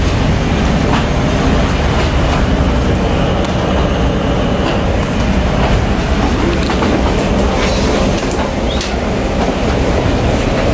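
Steady rumble of footsteps and roller-bag wheels on a jet bridge's floor, with scattered clicks and knocks.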